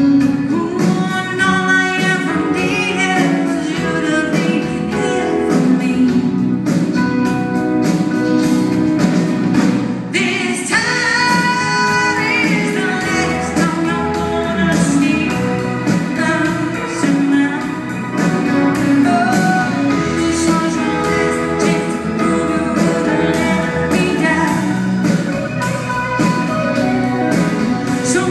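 Live band performing a song: a woman singing lead over acoustic guitar, electric guitars, keyboard and drums, heard from the audience in a hall.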